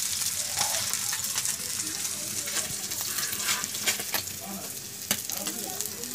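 Paniakhia fish shallow-frying in hot oil in a black pan: a steady sizzling hiss with frequent sharp crackles and pops.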